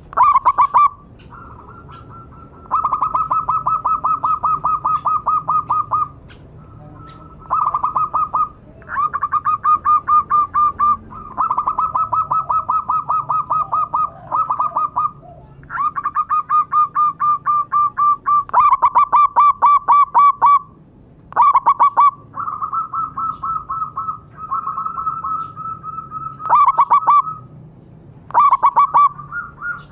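Zebra dove (perkutut) song: runs of fast, evenly pulsed cooing notes, about nine a second, each run lasting one to three seconds and following the last after a short pause.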